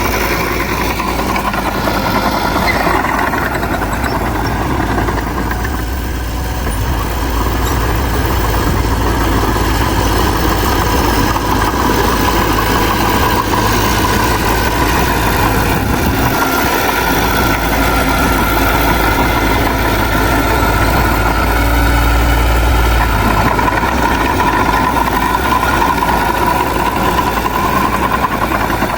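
Heavy diesel earthmoving machine running steadily, a deep engine hum with a whine that drifts up and down in pitch.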